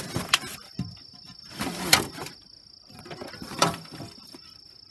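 Canvas cover of a camper-trailer slide-out kitchen rustling as it is pulled back, and the hinged lids over the stove and sink lifted open, with three sharp clicks or knocks, the loudest about two seconds in. A steady high insect drone runs underneath.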